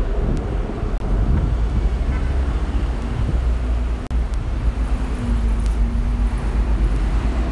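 City street traffic noise: vehicles running past with a heavy low rumble. A steady low hum sets in about two-thirds of the way through.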